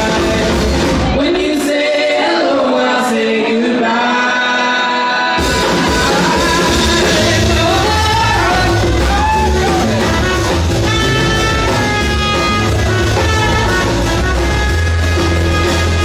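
A live band plays: a female lead vocal over drum kit, upright bass and trumpet. About a second in, the bass and drums drop out and leave the voice nearly alone. The full band comes back in at about five seconds.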